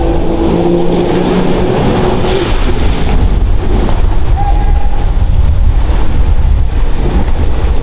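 Yamaha jet ski engine running hard at speed across the water, a steady drone with a shifting whine, under a heavy low rumble of wind on the microphone.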